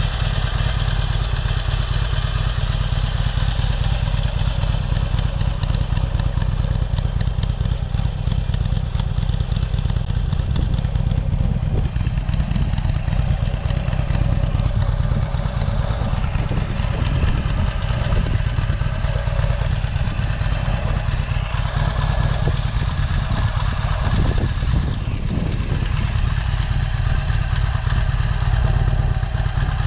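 Harley-Davidson Sportster 883's air-cooled Evolution V-twin idling steadily through its twin staggered shorty exhaust with dual mufflers.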